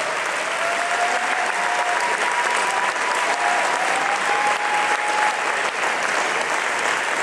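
Audience applauding steadily, with a few faint held tones over the clapping during the first five seconds.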